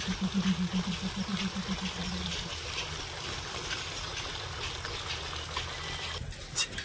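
Water running steadily from a pipe outlet into a plastic bucket. It cuts off suddenly near the end.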